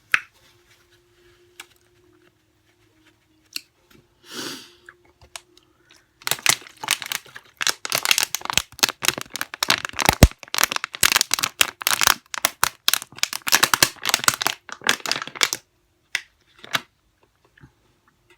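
Extra-crunchy fried chicken crust crackling and crunching close to the microphone as it is bitten and torn apart, a dense run of sharp crackles lasting about nine seconds after a few quiet seconds with only scattered clicks.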